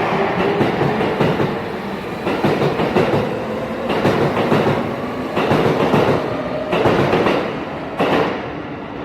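Electric commuter train passing over a level crossing, its wheels clattering over the rail joints in a string of loud, uneven knocks. The sound fades as the train moves off near the end.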